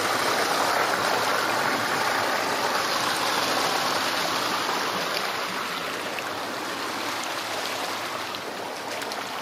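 Shallow water splashing and rushing in a steady, even wash, growing a little quieter after about six seconds.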